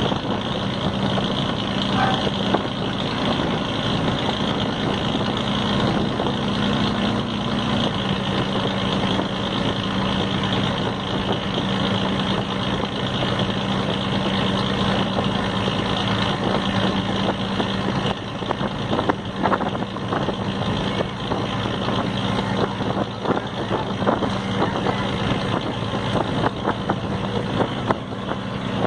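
Ferry boat's engine running with a steady drone over a constant rushing noise.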